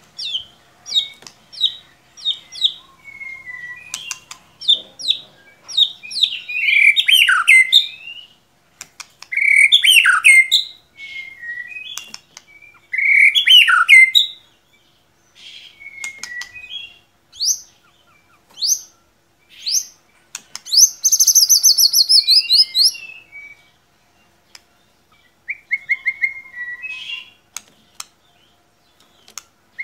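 White-rumped shama (murai batu) singing a varied song in short phrases of clear whistles, quick up-and-down slurs and a fast trill, with brief pauses between phrases.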